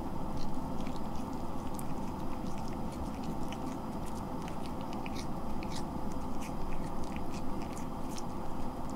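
A cat chewing and licking the yellow strip of a wand teaser toy: many small, quick mouth clicks, coming thicker after about three seconds, over a steady low background hum.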